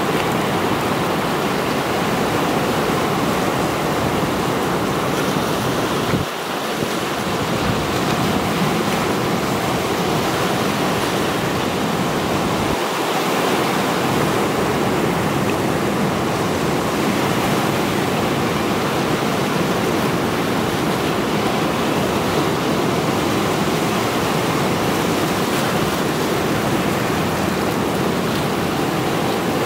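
Mediterranean sea waves breaking and washing over a rocky shoreline: a steady, unbroken rush of surf and foam.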